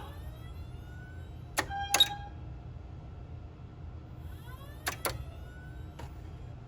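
Two pairs of sharp clicks or knocks with a brief ringing after each, and a fainter click near the end, over a steady low hum.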